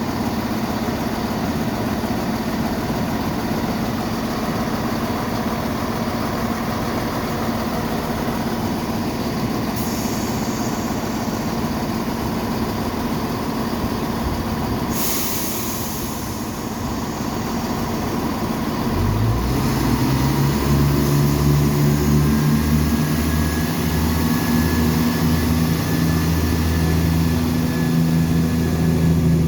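Diesel multiple unit train running at the platform with a steady hum, a short hiss of air from the brakes about halfway through. About two-thirds of the way in the engine note rises sharply into a loud, pulsing drone as the train powers up to pull away.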